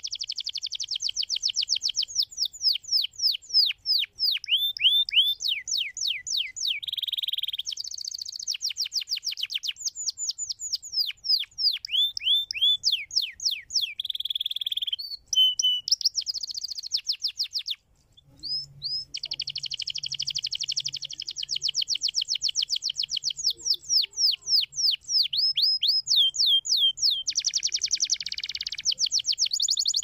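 Domestic canary singing: long, fast trills of repeated high, down-sweeping notes, switching between different rolls and buzzy runs, with a short break a little past halfway.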